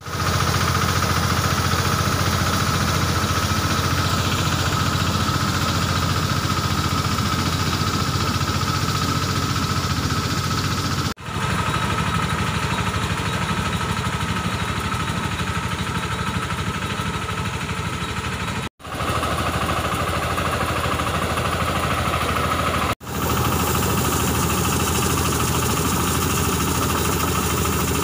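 10 hp three-wheeled mini tractor engine running steadily while it powers a crop sprayer, with a constant whine from the sprayer. The sound cuts out abruptly three times for a moment.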